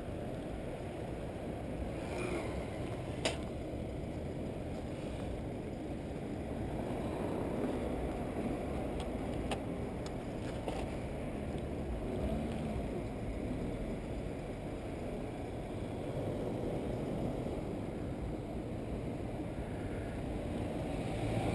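Steady low rumble of wind buffeting the camera microphone while cycling, mixed with road noise, with a single sharp click about three seconds in.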